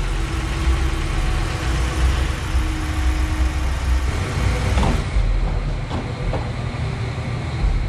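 Ram 1500's 5.7 HEMI V8 idling steadily with no exhaust tick, now that the leaking exhaust manifold's gasket is replaced and its broken bolts repaired. About five seconds in the sound changes, with a couple of light knocks.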